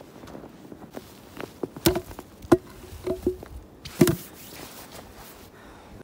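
Footsteps in snow, with a handful of sharp crunches about two to four seconds in.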